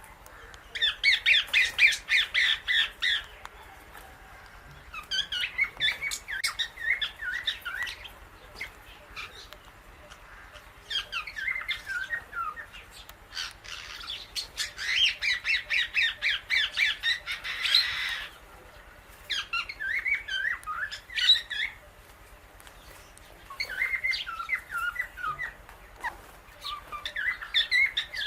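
Indian ringneck and Alexandrine parakeets making rapid clicking, chattering calls in about seven bouts of two to four seconds each, separated by short pauses.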